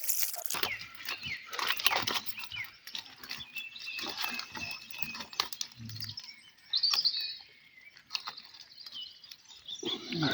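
Irregular rustling, clicks and knocks from handling a keepnet of fish, with birds chirping about seven seconds in.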